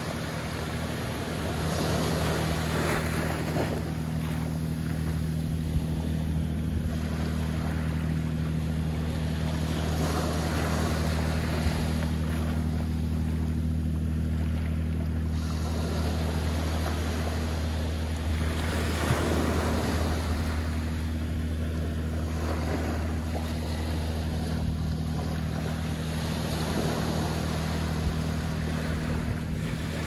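Small ocean waves washing up onto a sandy beach and drawing back, swelling every several seconds. A steady low engine hum runs underneath.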